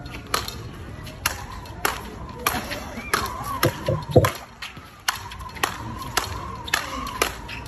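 Speedball rackets striking the tethered ball in a fast rally: a run of sharp knocks, about two a second.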